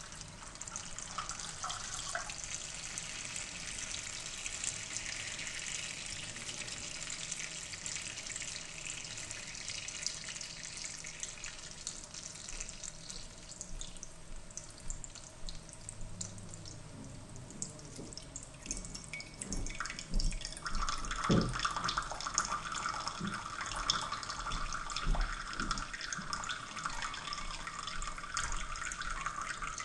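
Water splashing and trickling as 8 ounces are poured as simulated rain onto mulch-covered soil. About twenty seconds in, a louder, steadier trickle starts, with scattered drips.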